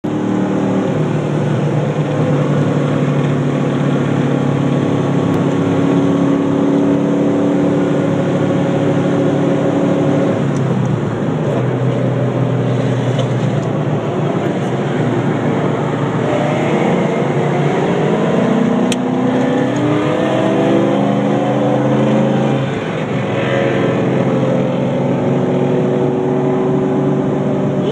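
V8 muscle-car engines at hard throttle in a street race, heard from inside a car's cabin. Engine pitch climbs and drops at gear changes a couple of times.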